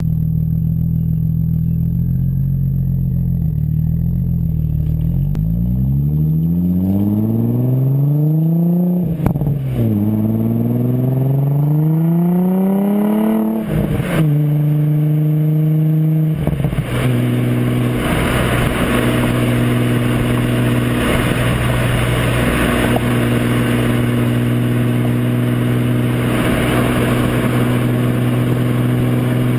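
Audi S4 with a custom Borla exhaust, heard from the moving car, revs up twice, dropping in pitch at a gear change after each. It then settles into a steady cruise under a louder wash of wind and road noise.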